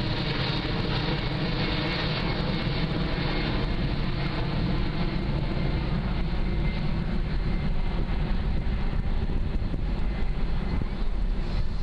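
Jet noise from an Airbus A380's four turbofan engines during a low, slow flypast: a steady, dense sound with faint engine tones that grows gradually louder.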